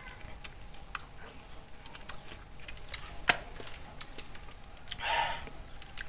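Wet mouth clicks and smacks of someone chewing and sucking on a juicy ripe mango, with a sharper click a little past three seconds in and a short louder rush of noise about five seconds in.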